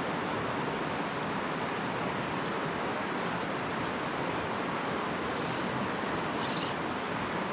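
Mountain stream running over rocks: a steady rush of flowing water.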